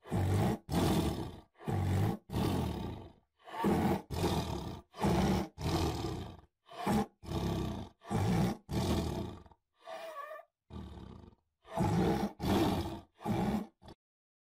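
Tiger roaring in a long series of short, harsh roars, more than a dozen in quick succession, which stop shortly before the end.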